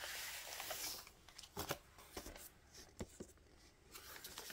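Paper inner sleeve and vinyl LP being slid out of a record sleeve: a soft papery sliding rustle through the first second, then a few light clicks and taps as the record is handled.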